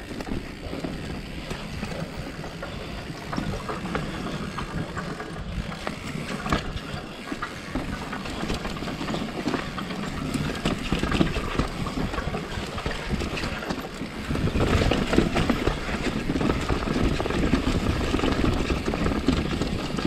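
Mountain bike riding down a rocky dirt trail: tyres rolling and knocking over rock and roots, with the bike rattling. It grows louder and rougher about three-quarters of the way through.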